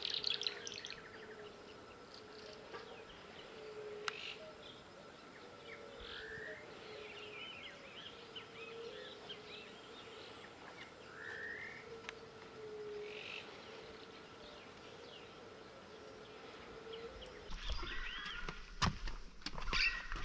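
Marsh soundscape: many birds chirping and calling at a distance over a steady insect buzz. About three seconds from the end it gets louder, with footsteps knocking on a wooden boardwalk.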